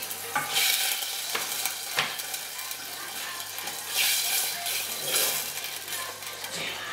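Wooden spoon stirring and scraping around a metal saucepan on a gas hob, in bursts, with two sharp knocks of utensils in the first two seconds.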